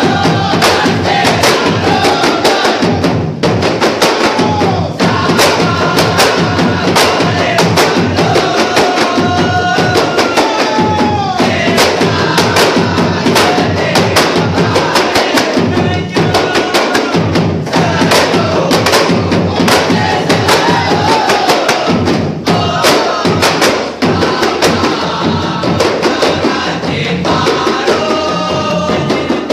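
Kompang ensemble: many hand-held Malay kompang frame drums struck by hand in a fast, dense interlocking rhythm, with a large barrel drum, while the drummers sing together.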